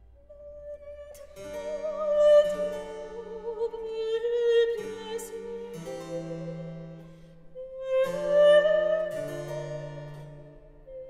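Classical background music: harpsichord chords under a held, slightly wavering melody line, swelling twice.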